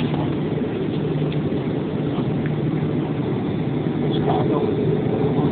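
Cabin noise inside a Boeing 737 moving along the runway: the CFM56 turbofan engines and airflow give a steady rumble with a low hum, heard through the cabin from a window seat.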